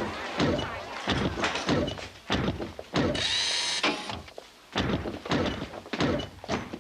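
Heavy clunking footsteps, about two a second, with a short high mechanical whir about three seconds in: a sound effect for an android walking.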